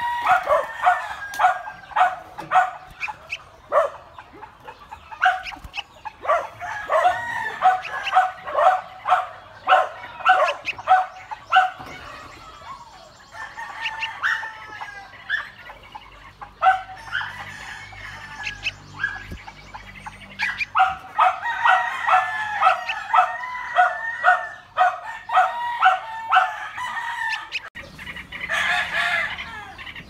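Yellow-vented bulbuls calling: runs of short, pitch-bending chirps, several a second, with a few brief lulls.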